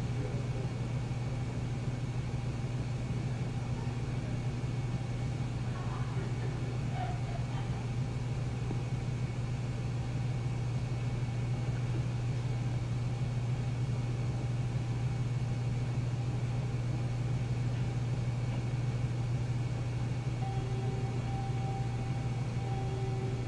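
Steady low hum with faint hiss: background noise of an old video recording, with no distinct sound event. A faint steady tone comes in near the end.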